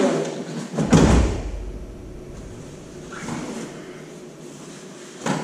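Two people falling together onto a padded martial-arts mat in a sacrifice throw: one heavy thud about a second in, followed by the quieter rustle of uniforms and bodies on the mat.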